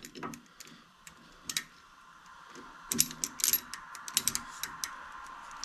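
Scattered sharp metallic clicks and clanks of hand tools being fitted and worked on a truck's tie rod end nut, with a quick cluster of clicks about three seconds in and another about a second later.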